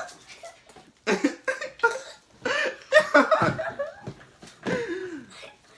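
Children laughing and calling out in several short bursts, with no clear words, in a small room.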